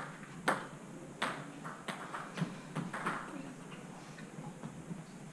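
Table tennis ball in a short rally: sharp clicks of bat hits and table bounces about every half second for the first two seconds, then a few weaker knocks as the point ends.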